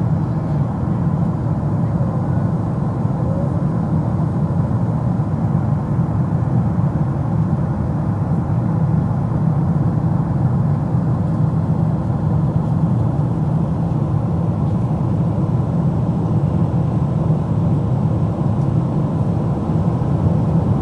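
Steady low rumble inside the cabin of a Boeing 777-200ER in flight: engine and airflow noise heard from a window seat in the last row.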